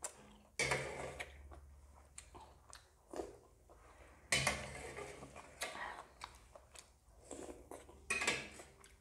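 Close-up eating sounds: three loud slurps of spicy noodles and broth from a metal spoon, about a second in, about four seconds in and near the end, with chewing and light clinks of the spoon and fork on a steel plate between them.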